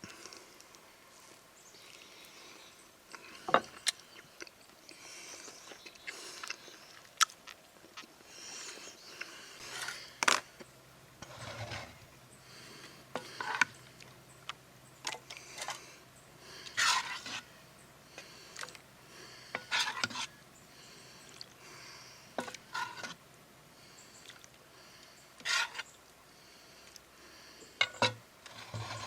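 Cutlery clinking and scraping on a plate, in scattered single clicks and short scrapes every second or two.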